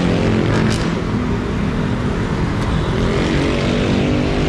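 A motor vehicle's engine running steadily, a constant low hum with an even noise over it.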